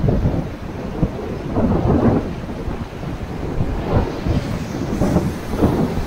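Rushing river water around an inflatable raft running through rapids, mixed with low rumbling wind buffeting on the microphone, surging every couple of seconds.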